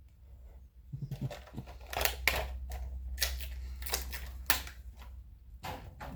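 Plastic charging case of true wireless earbuds being snapped open and shut over and over: a run of sharp, uneven clicks.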